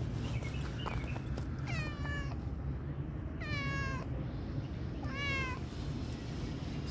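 Tabby-and-white domestic cat meowing three times, about a second and a half apart, each meow falling in pitch.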